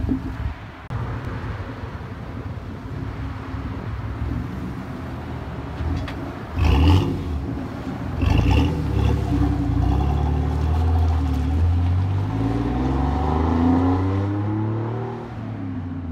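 Exhaust of a 2006 GMC Sierra's 4.3-litre V6 through a Flowmaster Super 10 muffler and side-exit dual tips, running with a deep rumble. It is revved sharply twice, about seven and eight and a half seconds in, then the pitch climbs steadily as the truck pulls away under throttle, and the sound drops off near the end.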